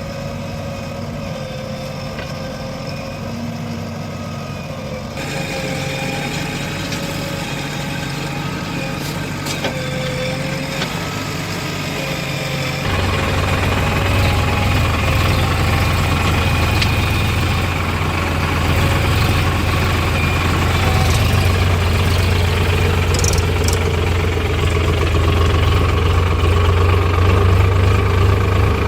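JCB 3DX backhoe loader's diesel engine running steadily, getting louder about five seconds in and louder and deeper again about thirteen seconds in.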